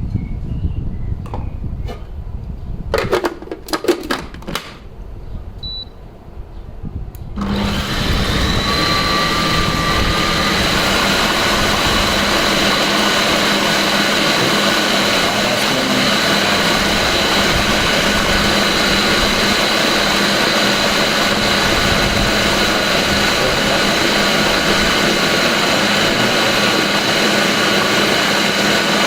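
A few clicks and knocks, then about seven seconds in a blender motor starts and runs steadily at full speed, pureeing roasted eggplant with tahini, lemon, olive oil and spices into baba ganoush.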